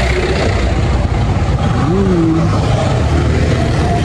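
Steady engine and wind rumble of a motorcycle being ridden, with a short rising tone about two seconds in.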